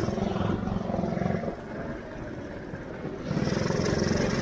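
Shifter go-kart engine running. The throttle eases off about a second and a half in, and the engine opens up again near the end.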